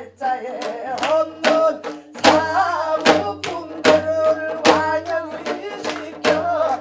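Korean traditional folk-song music: a wavering, held melodic line over regular drum strokes.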